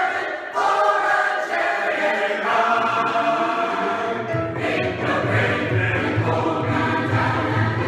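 A large mixed choir singing a spiritual in full harmony. A low, evenly pulsing part comes in underneath about four seconds in.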